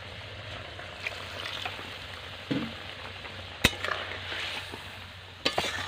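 Spatula stirring a thick potato and vegetable curry in a metal kadai, the gravy sizzling steadily as it cooks down, with a sharp clink of the spatula on the pan about three and a half seconds in and a few more knocks near the end.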